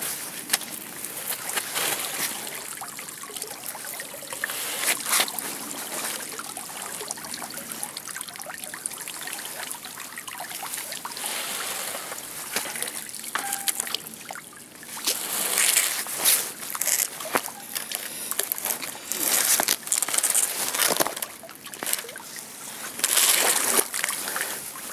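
Canal water sloshing and trickling off a sunken bicycle as it is hauled up against a quay wall on a rope, with splashing that grows louder and choppier in the second half.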